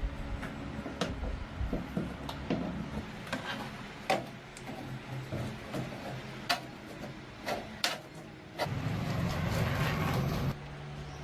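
Workshop repair sounds: scattered sharp knocks and clicks of tools on machine parts over a steady low hum, with about two seconds of rougher, louder noise near the end that stops abruptly.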